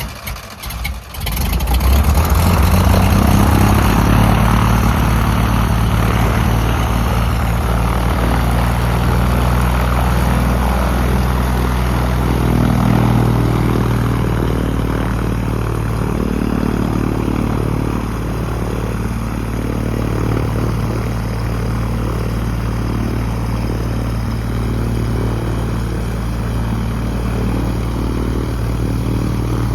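Cessna 180F's Continental O-470-R six-cylinder engine and propeller starting, catching within the first two seconds, then running steadily.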